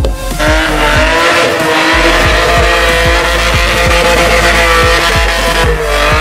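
A car engine held at high revs, its pitch wavering slightly, as the car spins donuts with its driven wheels spinning in a smoky burnout. Music with a steady beat plays underneath.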